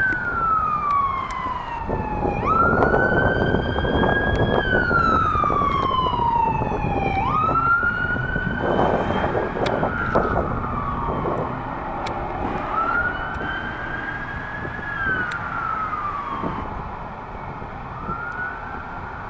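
Police car siren on wail: the pitch slides slowly down, then sweeps quickly back up and holds, about every five seconds, over passing traffic noise. It grows fainter over the second half.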